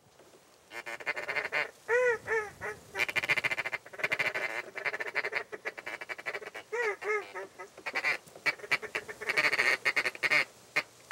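Duck call blown to lure a passing duck: quacks, one pair about two seconds in and another near seven seconds, over a rapid chattering run of short notes.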